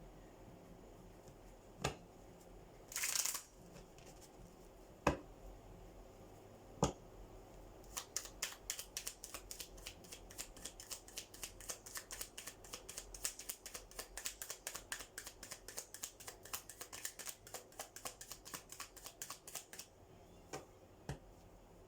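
A deck of tarot cards being handled and shuffled: a few separate taps and a short rustle, then about twelve seconds of rapid card clicks.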